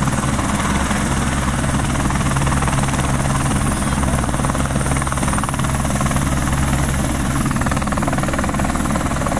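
Single-engine turbine helicopter running with its rotor at speed on the ground, a loud, steady rotor and engine noise, lifting off into a low hover near the end.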